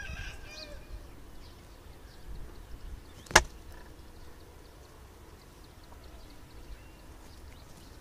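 A single sharp click or knock about three and a half seconds in, over a faint low rumble, with a few faint bird-like calls in the first second.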